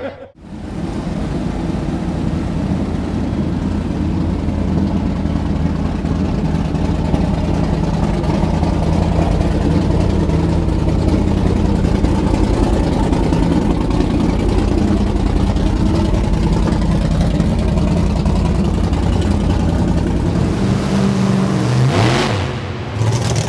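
Monster truck engines running loud and steady. Near the end a short rushing noise, then a different, lower-pitched engine takes over.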